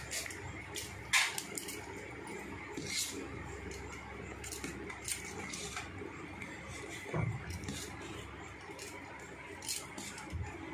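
A metal spoon stirring thick batter in a stainless steel bowl, with light, irregular clinks and taps of the spoon against the bowl.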